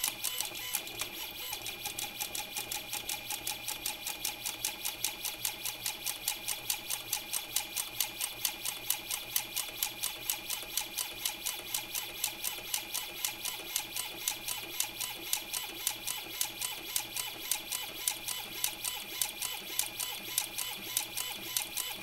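Robotic safe auto-dialer's motor driving a combination safe dial round, with a steady whine and a fast, even clicking of about five ticks a second as it works through combinations.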